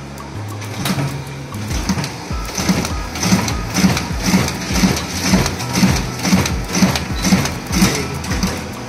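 Riso CV3230 digital duplicator printing thin paper. It builds up over the first two seconds into a steady rhythmic clack of about two strokes a second, one per sheet, and dies away near the end.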